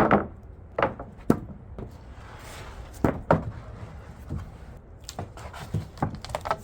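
Freshly sawn poplar boards knocking against each other as they are handled and set down on a pile: a string of sharp wooden knocks, a loud one at the start and a quick cluster of them near the end.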